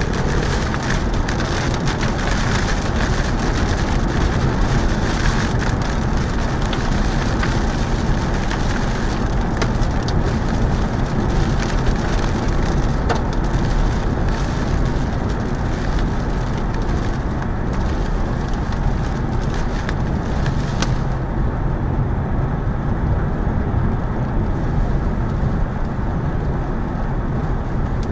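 Storm noise: heavy rain over a deep, steady rumble, with many sharp ticks of impacts. About two-thirds of the way through, the ticks stop and the high hiss drops away, leaving the rumble.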